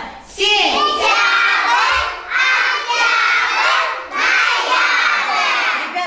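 A group of young kindergarten children speaking loudly together in chorus, in three drawn-out phrases with short breaks between them.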